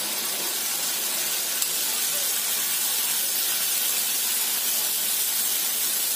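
Water sizzling and hissing steadily in a hot kadhai of ghee-roasted ragi flour, just after it was poured in.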